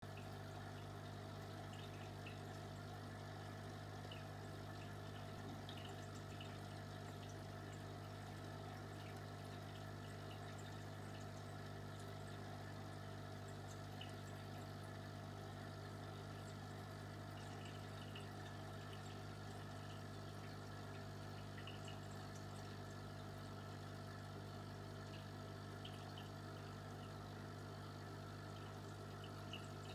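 Steady low hum of an aquarium pump, with faint water trickling and small ticks of bubbles or drips over it.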